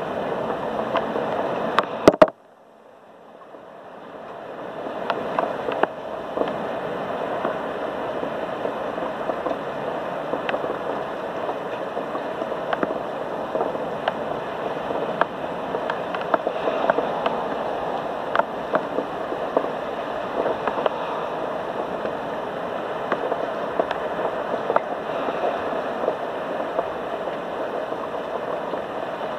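Steady thunderstorm rain: an even hiss scattered with many small ticks of drops. About two seconds in there is a sharp double click, and the sound drops out almost completely, then fades back up over the next few seconds.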